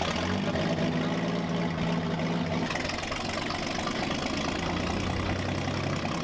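Propane-fuelled forklift engine idling steadily, its note changing slightly about two and a half seconds in.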